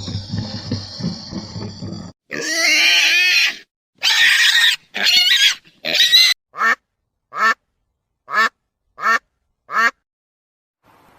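A low, rough animal sound cut off abruptly, then a series of pitched animal calls: four longer wavering calls followed by five short, evenly spaced ones.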